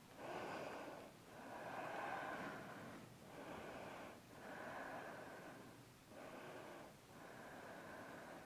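A woman breathing slowly and deeply in and out: about three full breaths, each inhale and exhale a faint soft hiss lasting one to two seconds.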